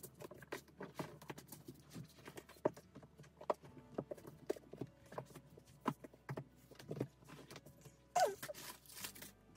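Paperback manga volumes being handled and stacked: irregular hard taps and knocks as books are set down on piles and knocked against each other. A brief falling squeak comes about eight seconds in.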